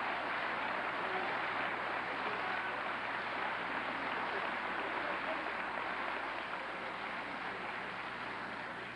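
Audience applauding in a large hall, a steady dense clapping that dies down near the end.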